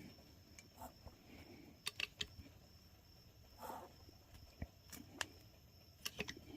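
Faint, irregular clicks and taps from a hand-pumped hydraulic crimping tool being worked to squeeze a terminal down onto a battery cable, with a brief soft rustle in the middle.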